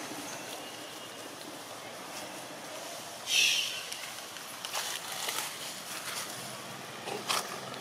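Dry leaf litter crackling and rustling as macaques move over it, with scattered crackles in the second half. About three seconds in there is one louder, short rasping sound.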